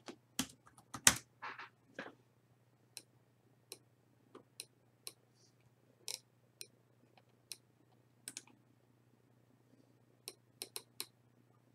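Single clicks of a computer mouse and keyboard keys, spaced about a second apart, with a quick run of clicks near the end. In the first two seconds there are a few louder knocks and a short rustle, over a faint steady hum.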